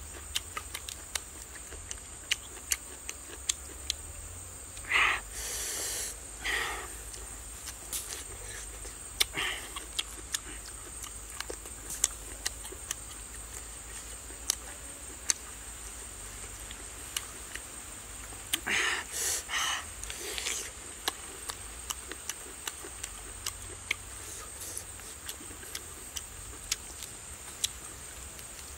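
A person eating: many small wet chewing and lip-smacking clicks, with sharp hissing, sucking breaths in short groups about five seconds in, at about nine seconds, and again around nineteen to twenty seconds. A steady high whine runs underneath.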